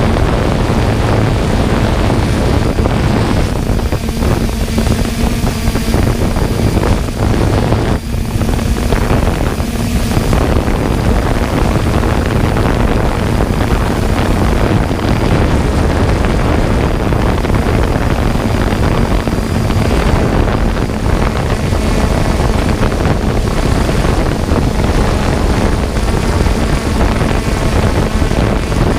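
3DR Solo quadcopter's electric motors and propellers running steadily in flight, with a low hum and wind rumbling on the onboard camera's microphone.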